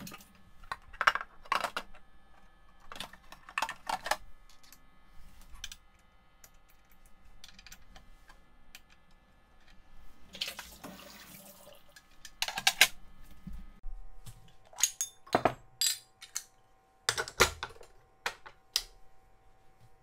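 Clinks and knocks of stainless-steel espresso machine parts being handled and set back in place: the drip tray and its grate and the portafilter. About halfway through comes a second of rustling.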